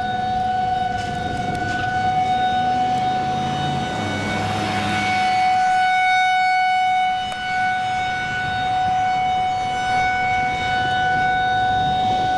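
Outdoor tornado warning siren sounding one steady held tone, swelling a little louder midway, with a low rumble underneath.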